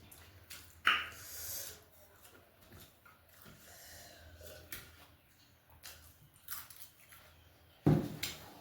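A person eating: chewing with small wet clicks, a sharp loud crunch about a second in, and a loud thump near the end.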